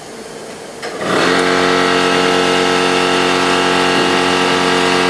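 A click, then a loud, steady machine drone switches on about a second in and holds at a constant pitch.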